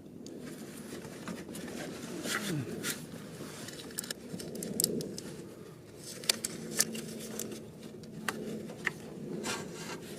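Plastic rubbing and scraping with scattered small clicks as the eccentric shaft sensor of a BMW N62 V8 is twisted and pushed about in its bore, hunting for its locating slots before it seats.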